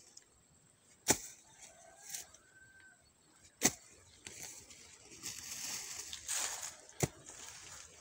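Hoe blade striking damp earth three times, a few seconds apart, with scraping and dragging of loosened soil between the second and third strikes.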